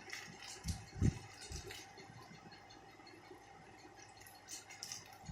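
Packaging being handled during an unboxing: a couple of soft knocks about a second in and brief rustling and crinkling of the wrapping, with a faint steady hum underneath.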